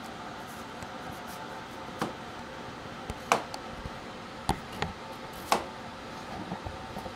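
A knife slicing through a cabbage onto a plastic cutting board: a handful of separate, uneven knocks as the blade hits the board, the loudest about three seconds in, over a steady background hum.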